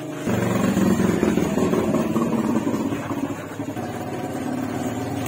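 A small engine or motor starts abruptly, loud, about a quarter second in and keeps running with a fast, rough pulsing.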